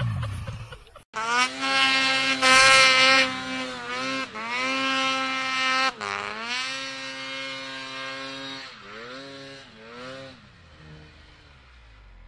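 Snowmobile engine revving hard in repeated surges, its pitch sweeping up at the start of each and then holding high, as the sled churns in deep powder snow; it fades toward the end. A lower engine sound cuts off abruptly about a second in, before the revving starts.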